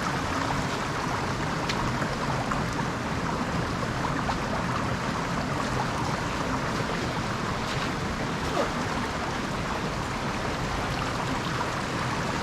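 Creek water running steadily, a constant rushing sound with no break.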